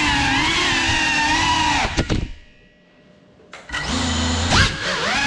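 Brushless motors and propellers of a GEPRC 35 cinewhoop FPV drone whining, the pitch rising and falling with throttle. About two seconds in the sound falls away almost to nothing for about a second and a half, then comes back.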